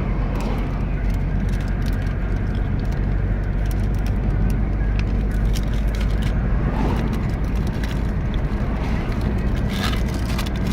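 Steady low road and engine rumble heard inside a moving car, with a few light ticks.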